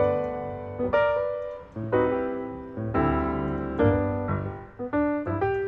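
Background piano music: struck notes and chords that each ring and fade, about one or two a second.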